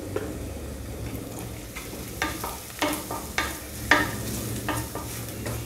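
Onions and ground masala powder sizzling in a pressure cooker pan while a wooden spatula stirs and scrapes the pan bottom. From about two seconds in, the scrapes come roughly twice a second. The spice powder is being sautéed to cook out its raw smell.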